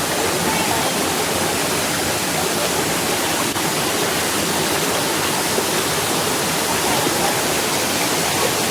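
Water rushing steadily over a waterfall and down a stream, a loud, even rush with no breaks.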